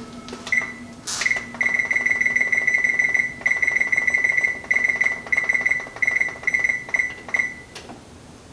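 Electric range's control panel beeping as the oven is set to preheat: a high tone begins about half a second in and keeps repeating, partly in long rapid runs of beeps, then in a few shorter beeps that stop shortly before the end.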